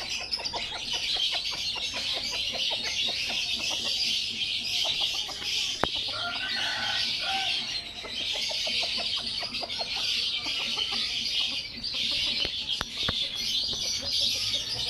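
A flock of chickens clucking in quick repeated notes over a dense, steady high-pitched chatter, with a few sharp clicks about six seconds in and near the end.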